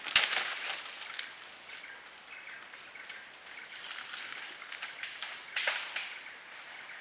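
Leaves and twigs rustling and crackling as a young Asian elephant pulls bamboo foliage with its trunk and feeds. The crackle is loudest just after the start and again later on, over a steady hiss of forest background.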